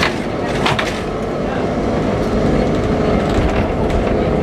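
Vintage Lisbon tram running along its rails, heard from on board: a steady rumble of the car and its wheels on the track, with two sharp clicks in the first second.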